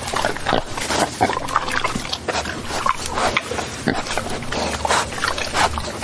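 Eating sound effect of chicken wings being chewed and munched: a dense, unbroken run of irregular chomps.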